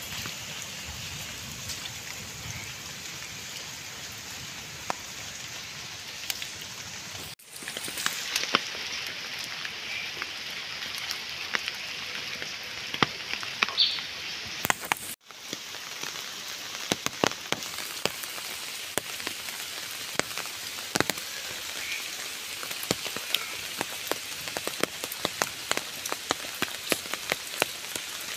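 Steady rain falling on wet ground and puddles: an even hiss with many sharp drop ticks. It cuts out for an instant twice.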